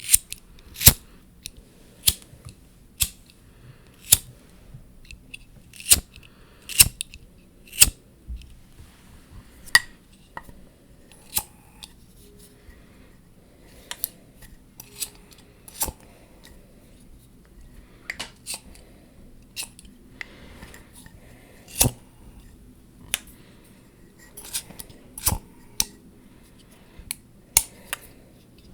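ASMR tapping on objects: sharp, irregular taps, one or two a second, with a stretch of soft scratching a little past the middle.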